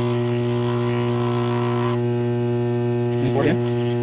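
Dental lab vibrator humming steadily while dental stone is vibrated into an impression held against it; the hum briefly gets louder and rougher about three and a half seconds in.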